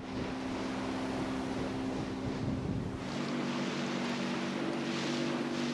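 Outboard motor of a small boat running at speed: a steady hum over the rush of water and wind, its note filling out a little about halfway through.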